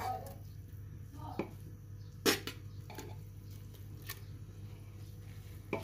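A few light clicks of kitchen utensils against a cooking pot, four in all and spread apart, the second the sharpest, over a steady low hum.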